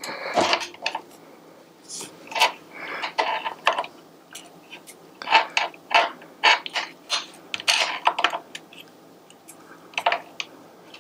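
Metal wrench on the axle nut of an e-bike rear hub motor, loosening it in short turns: a series of irregular metallic clicks and clinks.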